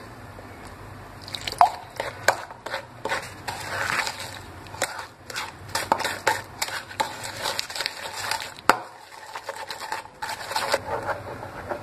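A metal spoon stirring thick muffin batter in a ceramic bowl, with irregular scrapes and clinks against the bowl.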